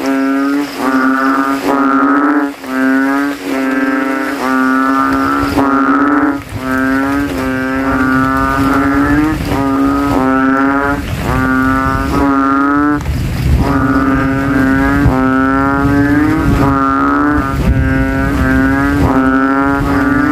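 Kintel frogs (Kaloula narrow-mouthed frogs) calling loudly from a rain puddle, each call a deep, nasal, bellowing note about half a second long, given through a ballooned vocal sac. At first the calls come roughly once a second. From about six seconds in, several frogs' calls overlap into a continuous competing chorus.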